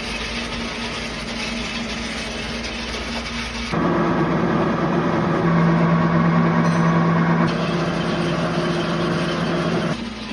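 Lathe running with a steady hum while machining a worm shaft; about four seconds in the hum turns louder and lower in pitch, and it drops back to the quieter hum near the end.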